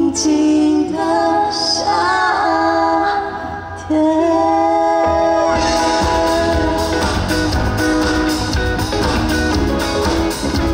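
Live pop music: a woman singing long, sliding notes over sparse backing. About five and a half seconds in, the full band comes in with drums and guitar.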